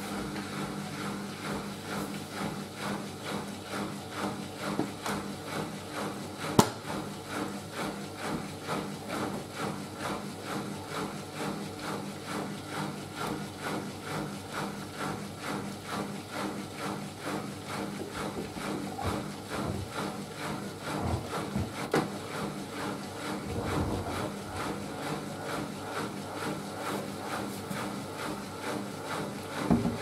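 Siemens Siwamat IQ 716 front-loading washing machine tumbling laundry in its drum during a wash: a steady rhythm of soft knocks and swishes, about one and a half a second. A single sharp click about six and a half seconds in.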